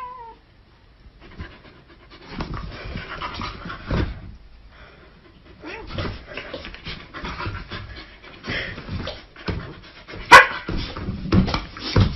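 Husky panting while play-fighting with a tabby cat on a bed, with irregular scuffling, rustling bedding and soft thuds of paws and bodies. A sharp, loud knock comes about ten seconds in.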